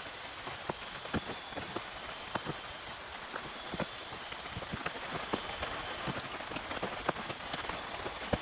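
Steady rain falling on a tent, with heavier drops hitting the fabric in sharp, irregular taps.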